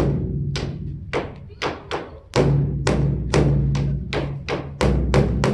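Large Buddhist temple drum (beopgo) beaten rapidly with two wooden sticks, about four sharp strokes a second over the drum's lingering low boom.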